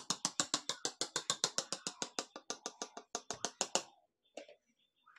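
Fast, even tapping of a plastic rice spoon on the bottom of an upturned aluminium pot, about seven taps a second, stopping about four seconds in, with a last tap shortly after. The taps knock the cooked biryani loose onto the platter beneath.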